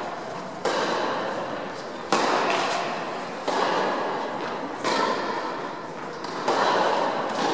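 Tennis balls being struck, sharp pops about every one and a half seconds, each ringing on in the echo of a large indoor tennis hall.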